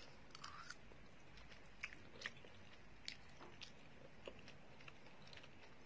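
Faint chewing of a mouthful of instant noodles, with a few small, scattered clicks.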